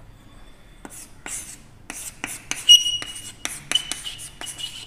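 Chalk writing on a blackboard: a run of quick taps and scraping strokes, with the chalk giving short high squeaks from about three seconds in.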